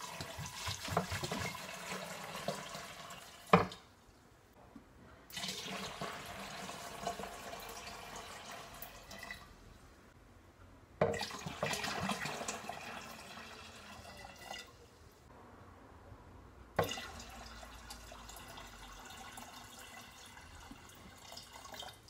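Water poured from a glass bottle into a large plastic jar of crushed grapes, splashing in three pours separated by short pauses. There is a sharp knock about three and a half seconds in and another near the end of the last pour.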